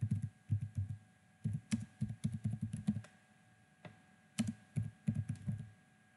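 Typing on a computer keyboard: quick runs of keystrokes broken by short pauses, with a longer pause a little after the middle.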